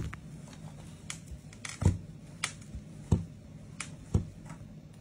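Handling sounds of a phone being wiped with a microfibre cloth on a work mat: about half a dozen sharp clicks and soft thumps from the phone, fingers and nails against the mat and glass, over a steady low hum.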